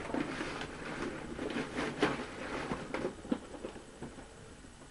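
Packing paper and a cardboard box being handled: irregular rustling and crinkling with light knocks, dying down near the end.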